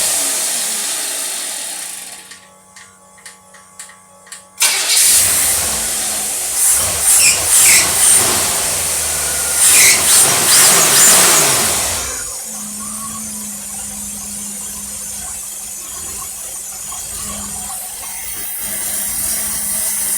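An engine running on a single-barrel carburetor. A first burst fades out within about two seconds, followed by a few short sputters. It then catches, is revved in a series of throttle blips, settles to a steady idle, and cuts off at the end. The mechanic judges it not running right, with the carburetor's accelerator pump not working.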